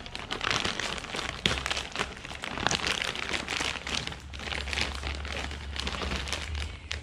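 Thin clear plastic bag crinkling and rustling as it is handled and pulled off a cardboard box, an irregular run of crackles throughout.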